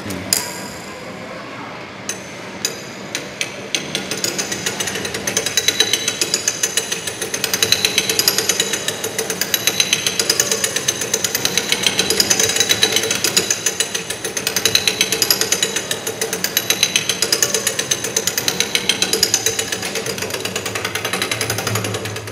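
Coins clicking into the coin slide of a penny-pressing souvenir machine. Its gear train then clatters with rapid, even clicks as the crank is turned, swelling and fading about every two seconds.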